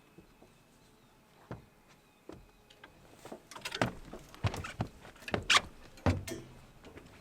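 Irregular knocks and clatters of gear being handled in a boat, sparse at first and then coming thick and fast a few seconds in.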